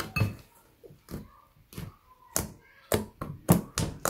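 Fluffy slime made from school glue and shaving cream being squeezed and poked by hand in a glass bowl, giving a string of short squishing pops that come faster in the second half.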